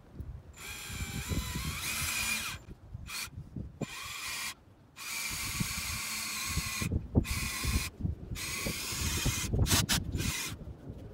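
Cordless drill boring a long bit into a wooden timber beam. The motor whines in several starts and stops, each run lasting a second or two.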